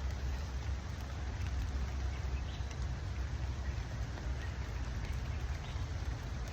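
Steady rain, an even hiss with scattered light drop ticks, over a continuous low rumble.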